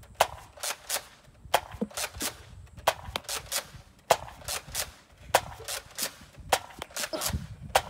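Nerf Rival Hades spring blaster firing foam balls again and again: a sharp pop about every second and a quarter, six or so in all, each followed by one or two lighter clacks.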